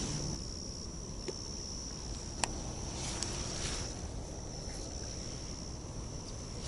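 Steady, high-pitched chirring of autumn insects, with a few sharp clicks, the loudest about two and a half seconds in.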